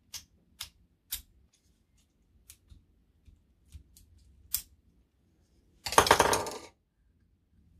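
Small model parts and tools being handled on a workbench: a run of sharp, separate clicks and taps, then a short, louder rattle about six seconds in.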